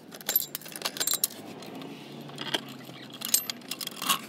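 Scattered metallic clinks and rattles of hand tools being handled under a car, irregular and sharp, busiest at the start and again toward the end.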